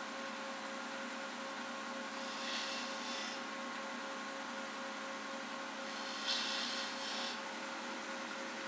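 Wood lathe running with a steady hum while the long point of a 13 mm rectangular skew chisel cuts a V-groove into the spinning spindle. There are two short hissing cuts, each about a second long and a few seconds apart, one from each side of the groove.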